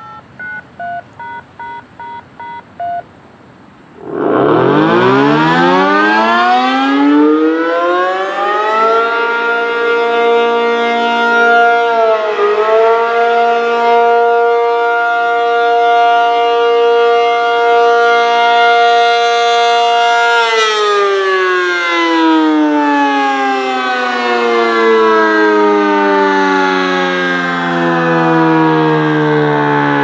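A quick string of DTMF activation tone beeps, then an ACA P-50 tornado siren winding up with a rising pitch about four seconds in and holding a steady alert tone. About twenty seconds in it starts to wind down, its pitch falling.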